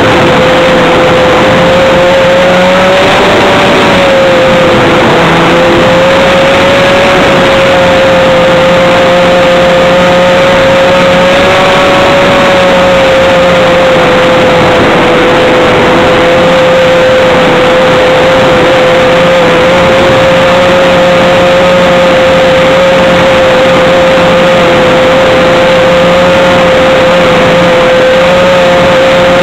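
RC model airplane's motor and propeller heard from a camera mounted on the model: a loud, steady high whine that wavers slightly in pitch, over a dense rush of wind noise.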